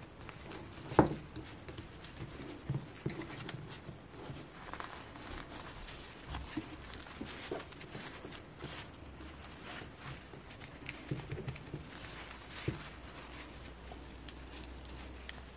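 Handling noises as a plastic fashion doll is dressed by hand: a fabric dress rustling and small taps and clicks of the doll against the tabletop, with one sharper knock about a second in.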